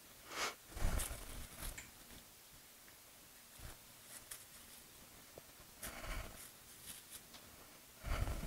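A few brief, faint kitchen handling sounds: rustles and light knocks, with a soft thud about a second in and another near the end.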